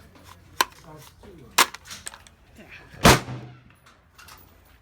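Gunshots: two sharp reports about a second apart, then a much louder shot about three seconds in with a ringing, echoing tail.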